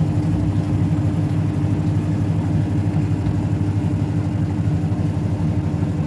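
Mademsa Fuzzy Logic top-loading washing machine on its spin cycle: the motor and spinning drum give a steady hum over a low rumble.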